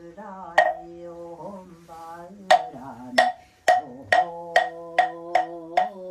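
A monk's chanting voice held on long, steady notes, with strikes of a moktak (Korean Buddhist wooden fish) struck sparsely at first, then about two a second. The beat keeps time for the participants' bows.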